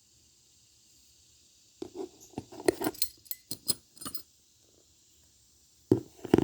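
Metal belt buckles being handled and set down: a run of clinks and knocks lasting about two seconds, then two more sharp knocks near the end.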